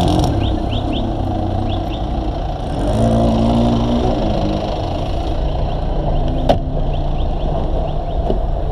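An engine idling steadily, with a single sharp click about six and a half seconds in.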